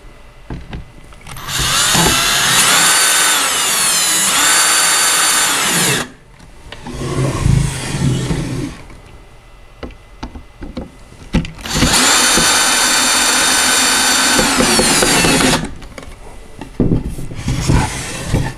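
Cordless drill driving screws through the tray arms into the wooden high chair, in two runs of about four seconds each. In each run the motor whine climbs as it speeds up and then holds steady. Between the runs the chair and drill are shifted with a few knocks and clicks.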